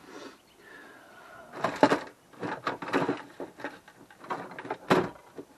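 Rummaging through a plastic tackle box: lures and tackle clattering and plastic trays knocking, a run of clicks and rattles starting about a second and a half in, with one sharper knock near the end.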